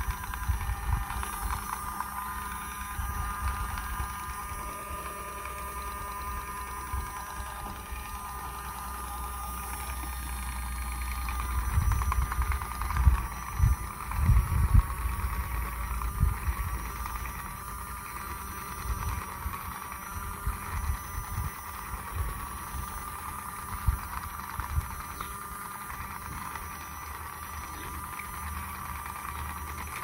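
Small electric motor of a toy sewing machine running with a steady whine, its pitch wavering from about the middle on as fabric is pushed through under the needle. Handling knocks and rubs of the cloth and plastic, loudest around the middle.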